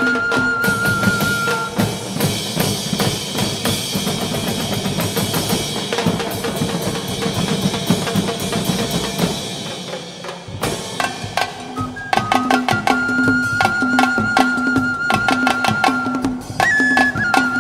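Dance-performance music with heavy drumming and percussion, a high held melody tone running over the beat. The sound thins out briefly about ten seconds in, then the drums come back in with the high tone.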